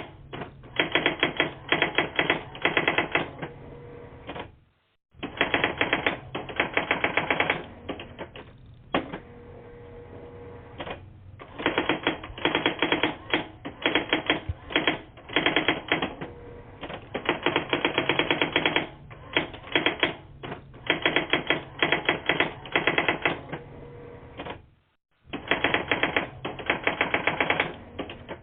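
Typewriter keys clattering in rapid bursts of one to two seconds with short pauses between, heard thin and narrow over a phone line in a voicemail recording. The sound cuts out completely for a moment twice, about five seconds in and near the end.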